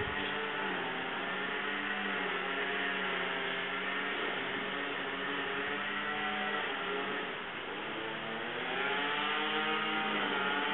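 An engine running steadily, its pitch dipping and then rising near the end.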